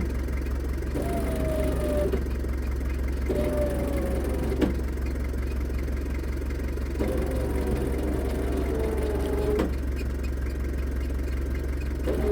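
Land Cruiser's winch hauling on a line tied high on a standing tree, run in several pulls of one to three seconds, its motor whine sagging in pitch as the line takes the tree's weight, over the truck's engine idling. A sharp click ends two of the pulls.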